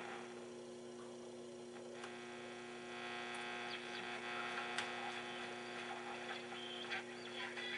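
Philco 39-30 tube radio's speaker giving a steady low hum with faint static and no station, on a push-button preset that is tuned to nothing local or is not working. The static grows a little about three seconds in.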